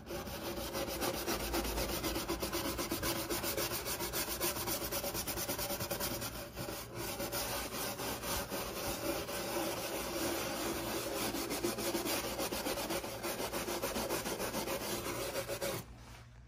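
Fast back-and-forth scrubbing on the greasy surface of a 1950s Dixie propane range, a steady run of rubbing strokes that stops about a second before the end.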